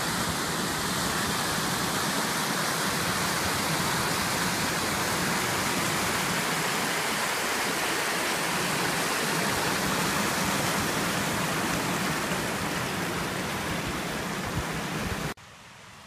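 Steady, even rush of running water that cuts off suddenly near the end, leaving only a faint hiss.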